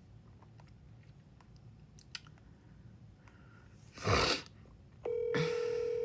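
A phone placing an outgoing call: faint taps, a short burst of noise about four seconds in, then the steady ringback tone of the call starting to ring about a second before the end.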